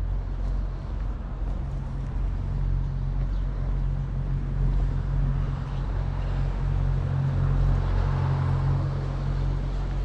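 Motor vehicle engine running steadily, a low even hum, with a swell of broader noise about eight seconds in.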